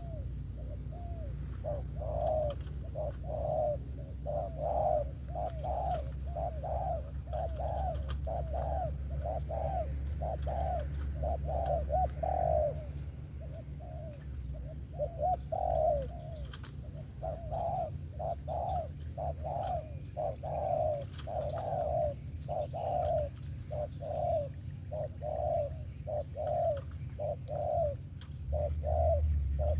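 Spotted dove cooing: a long run of short, repeated coos, with a brief break about halfway through. A steady low hum runs underneath.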